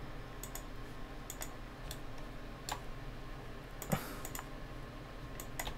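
Scattered clicks of a computer mouse and keyboard being worked, about a dozen short sharp ones, some in quick pairs, the loudest about four seconds in.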